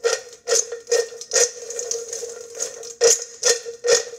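Blueberries being tossed and shaken in a container, rattling in quick uneven shakes about two a second, with a short pause in the middle.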